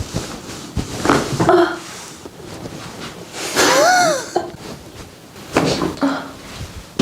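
A person's non-word vocal sounds, with one drawn-out cry about halfway through that rises and then falls in pitch.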